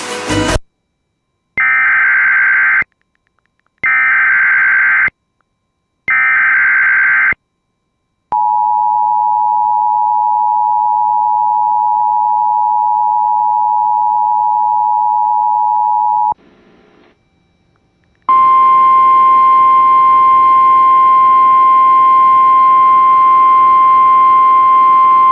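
Emergency Alert System tones: three short bursts of digital SAME header data about a second apart, then the two-tone EAS attention signal held steady for about eight seconds. After a brief pause a single steady alert tone with a buzzy edge starts and keeps on.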